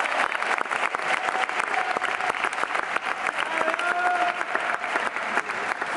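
Audience in a sports hall applauding, with dense, steady clapping after a badminton rally ends.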